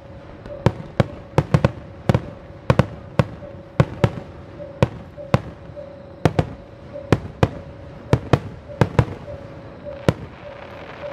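Festival fireworks going off in quick, uneven succession, two or three sharp bangs a second, each with a short echo. They stop near the end. A steady pulsing tone runs underneath.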